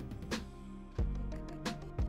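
Background music with a steady beat, a strong hit about once a second.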